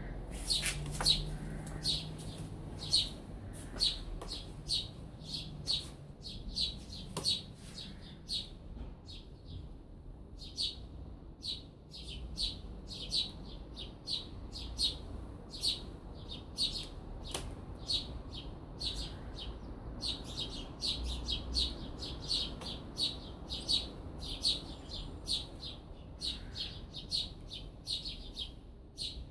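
Small birds chirping: rapid runs of short, high chirps, several a second, with a couple of brief pauses.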